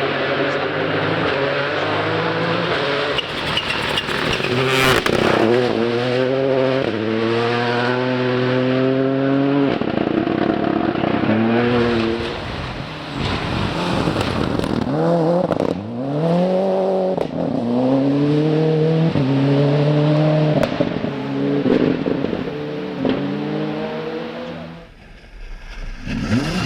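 Rally car engine revving hard, its pitch climbing and dropping again and again as it shifts through the gears. The pitch drops sharply at a few points along the way.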